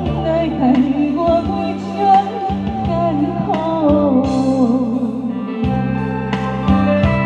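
A woman singing a melody into a handheld microphone over backing music with a steady bass line and keyboard chords. Her voice stops a little past halfway and the instrumental carries on.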